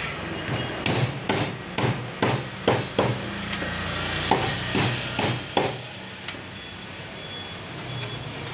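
A long knife scraping the scales off a whole tilapia on a wooden chopping block. It makes a run of about a dozen sharp strokes, roughly two a second, that stop about two-thirds of the way through.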